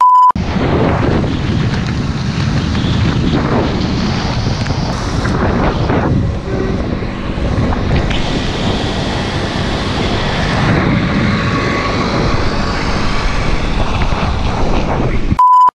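Heavy wind buffeting on the microphone with motorbike and tyre noise on a wet road, filmed while riding. A short steady beep at the very start and another just before the end.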